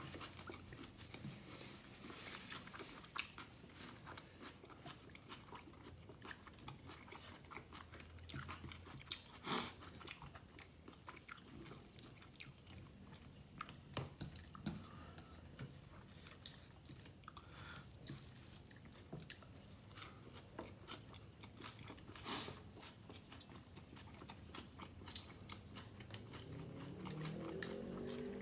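Close-miked mouth sounds of a person eating beef tehari with egg korma: steady wet chewing and lip smacks, with a few sharper bites or crunches.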